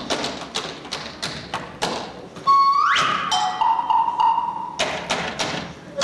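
Tap dancing: rapid, irregular tap-shoe strikes. About two and a half seconds in they pause for a short rising glide and a couple of held notes of music, then the taps start again near the end.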